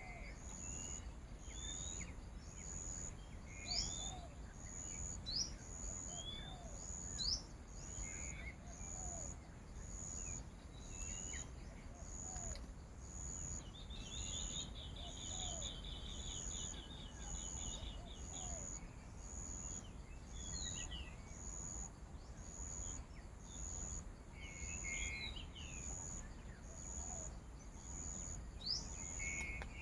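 Outdoor ambience of small birds chirping and whistling on and off, with one longer trill about halfway through. Under it an insect keeps up an even, high, pulsing call a little more than once a second, over a low rumble.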